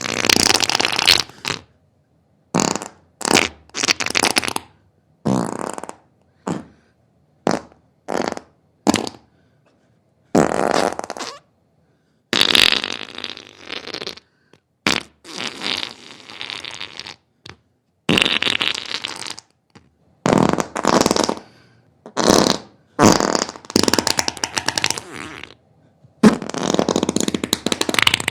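Diarrhea sound effects: a string of wet, sputtering farts. They come as separate bursts, some short and some lasting a second or two, each with a rapid crackle, with silent gaps between them.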